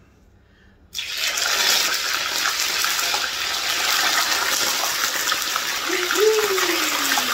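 Tilapia pieces frying in a pan of hot oil: the oil starts sizzling loudly and steadily about a second in, as the fish goes in.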